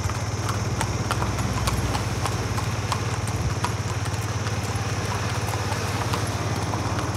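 Hooves of two Marwari horses clip-clopping on an asphalt road, an irregular run of sharp hoofbeats over a steady low hum.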